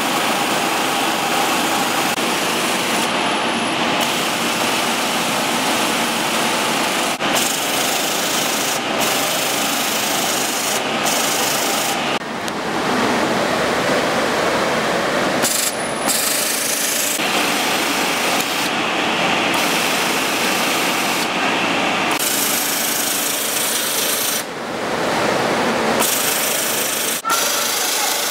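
Industrial edge-binding sewing machine running fast, stitching binding tape around a quilt's edge with a dense, rapid mechanical chatter. The sound drops out briefly several times.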